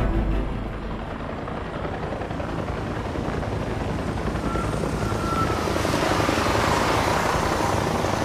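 Helicopter sound effect: the rotor's fast chop over engine noise, growing gradually louder as if the helicopter is approaching.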